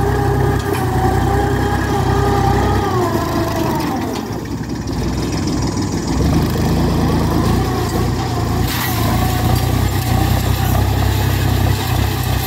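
Iseki 35 tractor's diesel engine running under load as it pulls a disc plough through dry soil. Its note drops and fades a few seconds in, then rises back and holds steady.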